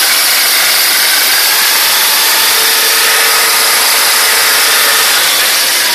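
Spark-ignition engine of a biomass-gasifier generator set, fuelled by producer gas, running steadily. Its sound is a loud, even rush without a clear beat.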